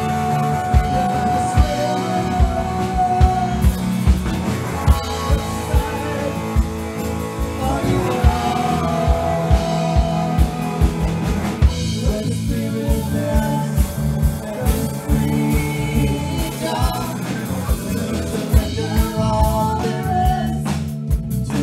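Rock band playing a song, with a steady drum-kit beat under guitar and held notes.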